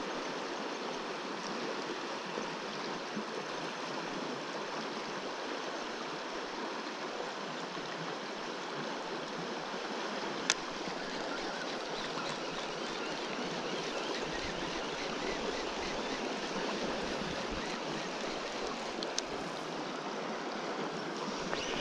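Shallow river water running over a gravel riffle right by the microphone: a steady rushing and babbling, with a single sharp click about halfway through.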